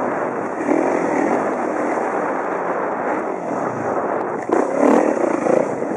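2011 Kawasaki KX450F's single-cylinder four-stroke engine running under throttle while riding a dirt trail, heard from a helmet camera. It gets briefly louder about four and a half seconds in.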